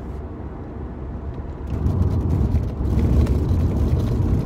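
Car cabin noise while driving: a steady low rumble of road and engine noise that grows louder about two seconds in.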